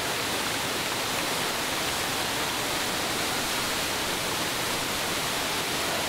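Steady rush of a 22-metre waterfall pouring into the river below, an even hiss of falling water.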